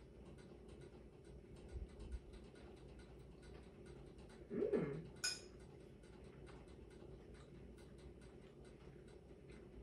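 Quiet kitchen with a faint steady hum while a woman eats a forkful of food. About halfway through she gives one short "mm" of tasting, followed by a light click.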